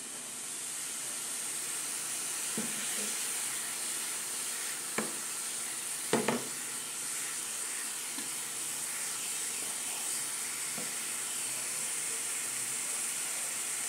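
Raw ground beef sizzling steadily as it browns in oil in a frying pan, the sizzle building over the first second or two as the gas flame is turned up. A few light knocks of a wooden spoon against the pan as the meat is stirred.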